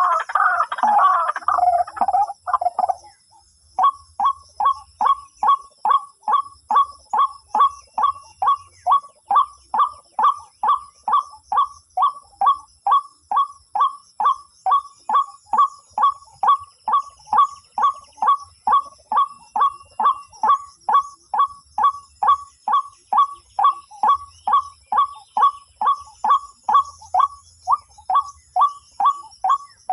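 White-breasted waterhen calling: a burst of dense, rapid chattering for the first few seconds, then after a short pause a long, steady series of repeated single notes, about two a second.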